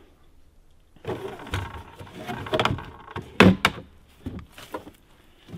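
A shotgun being slid into a hard-plastic ATV gun scabbard: a run of plastic scraping and rattling that starts about a second in, with a sharp knock a little past the middle and a few lighter knocks after.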